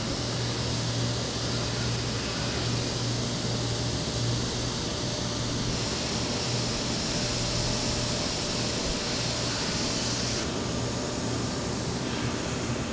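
Steady mechanical hum under a broad hiss, like running machinery or a fan. The hiss brightens about six seconds in and drops back a few seconds later.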